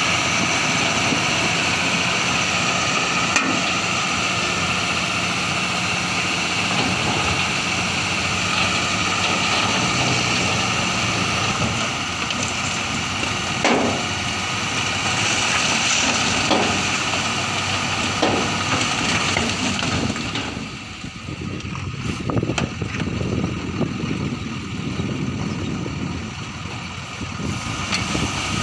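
Ashok Leyland tipper truck's diesel engine running steadily while the hydraulic hoist tips the loaded body, with a few sharp knocks. About twenty seconds in the engine sound drops and becomes quieter and more uneven.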